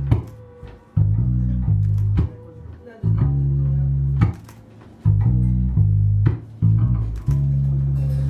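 Music: a band track led by held, deep bass-guitar notes with guitar over them, in phrases of one to two seconds broken by brief dips, with sharp hits where phrases begin.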